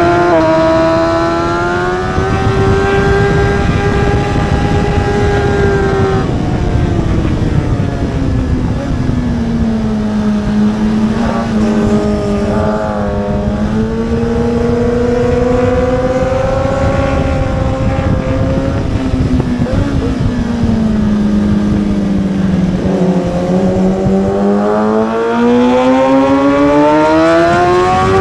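1000 cc superbike engine at race pace, holding high revs, then dropping in pitch about six seconds in and again around twenty seconds in as the bike slows, and climbing again each time as it accelerates. A heavy rush of wind noise runs underneath.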